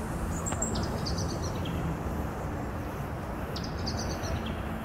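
Steady rush of surf on a sandy beach at night, with a couple of short clusters of high chirps about half a second in and again near the end.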